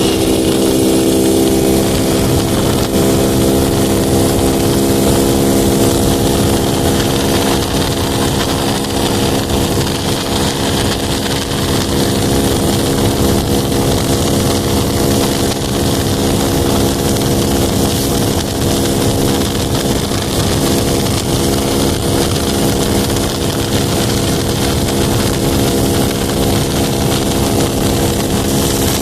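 Honda Pop 110's single-cylinder four-stroke engine running at a steady speed, its note holding even with no revving.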